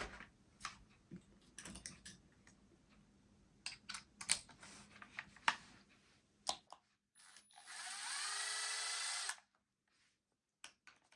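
Small clicks and taps of parts being handled. Then a small electric screwdriver whirs for about a second and a half, its pitch rising as it spins up, while it loosens the rear wheel nuts of a 1/18-scale RC crawler.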